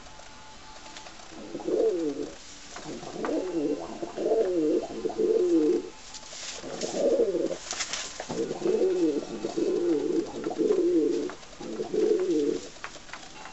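Domestic pigeon cooing in runs of rolling, wavering coos with short pauses, from about a second and a half in until near the end. It is the bow-coo of a pigeon bowing and turning in display.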